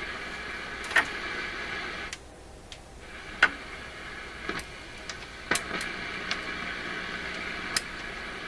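PYE 39HC valve shortwave receiver hissing with band noise from its speaker as it is tuned for a station, with a few sharp clicks. The hiss drops away for about a second, two seconds in.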